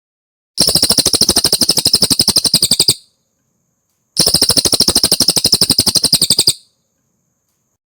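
Cililin songbird singing two identical fast, even trills, each about two and a half seconds long. The second starts about a second after the first ends.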